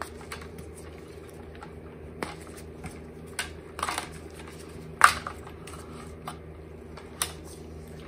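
Scattered light clicks and rustles of electrical cables and plastic connectors being handled on an e-bike's handlebar wiring, the sharpest click about five seconds in, over a steady low hum.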